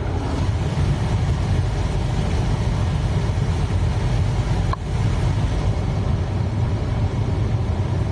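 Holden VY Commodore running, heard from inside the cabin: a steady low rumble, with one short click about five seconds in.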